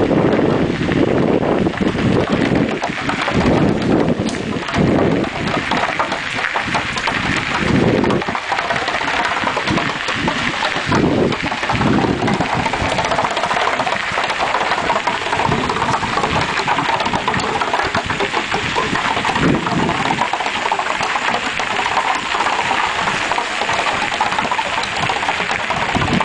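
A long wooden stick dragged along a wooden picket fence from a moving bicycle, clattering over the pickets in a fast, continuous clickety-clack.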